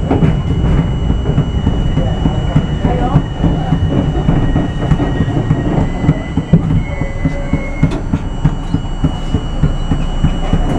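R42 New York City subway car running along elevated track, its wheels clattering over the rail joints above a steady rumble. A thin high whine comes in briefly about halfway through.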